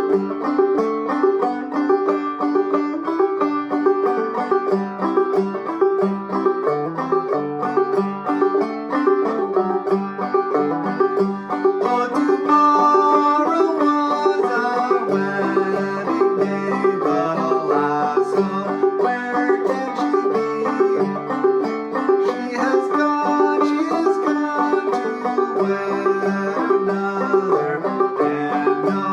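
Five-string open-back banjo, a Gold Tone CC Carlin 12, played clawhammer style: a steady stream of bright plucked notes and brushed strums picking out an old-time melody, without singing.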